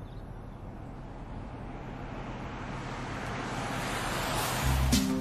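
An SUV driving up makes a rushing noise of engine and tyres that builds steadily over about four seconds. Near the end, music with a deep bass line and sharp beats comes in.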